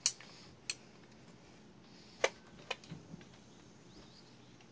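A few sharp metallic clicks and taps, the loudest a little over two seconds in, as the long through-bolts are fitted into the electric starter motor's metal housing.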